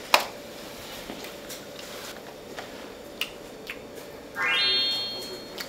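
A few light clicks of plastic fruit cups being handled. About four seconds in, a short bright musical sound effect rises quickly and holds for about a second.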